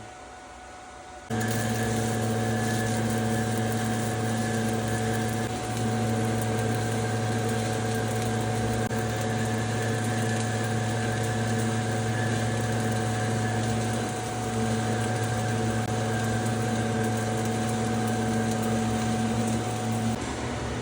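Stick welding arc burning a 7018 rod at about 90 amps from a small 110-volt welder, laying a cap bead on steel plate: a steady hiss with a low hum under it. The arc strikes about a second in and breaks off near the end.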